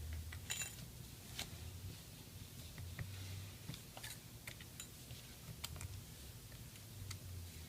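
Scattered light metallic clicks and taps at irregular intervals: the small metal connector cover plate and tools being handled and fitted over the display cable connectors inside an iPhone 6 Plus.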